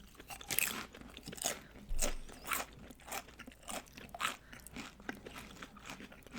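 Loaded nachos being chewed close to the microphone: a run of sharp tortilla-chip crunches, about two a second.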